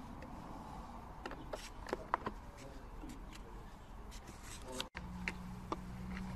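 A few light, sharp clicks and taps, then after a sudden cut about five seconds in, a low steady hum.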